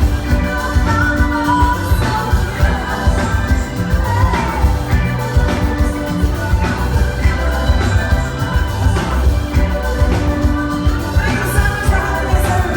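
Live band playing an upbeat pop song, a steady drum and bass beat with a sung vocal line over it.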